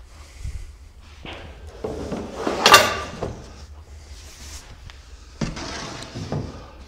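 A thin hardboard cabinet back panel being handled: a loud flexing clatter about two and a half seconds in, a few lighter knocks, then a scraping slide near the end as the panel is laid onto the cabinet's edges.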